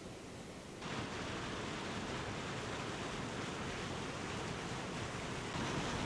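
Steady rush of water from the Tad Sae falls spilling over limestone, an even hiss with no distinct strokes. It gets louder about a second in and again near the end.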